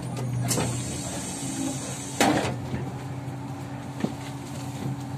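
Kyiv-12.03 trolleybus standing at a stop with its doors working: compressed air hisses from about half a second in, then gives a sharp loud puff about two seconds in, over the trolleybus's steady low hum. A small knock follows near the end.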